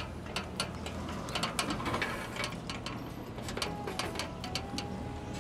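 Aluminium extension ladder clicking and clanking as someone climbs it: irregular short metallic clicks and light knocks of hands and feet on the rungs.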